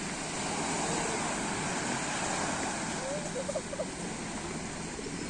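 Black Sea surf washing onto the shore, a steady rush of waves that swells a little about a second in and eases after about three seconds.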